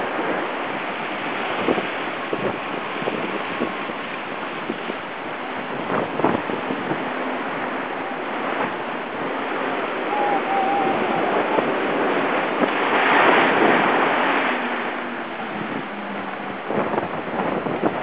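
Water rushing and hissing along the hull of a Class 40 racing yacht sailing fast through the swell, with occasional splashes of spray hitting the deck and wind on the microphone. The rush swells loudest about thirteen seconds in.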